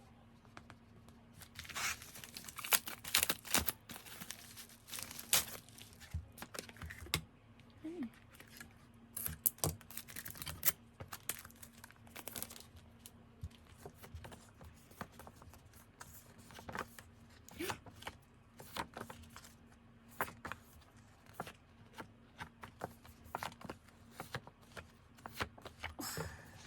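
Merchandise packaging being torn open and crinkled by hand, in rustling bursts with scattered clicks and taps as the items are handled.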